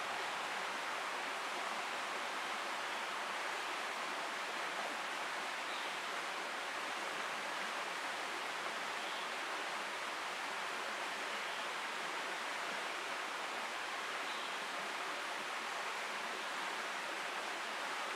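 Steady, unbroken rush of running water from a stream.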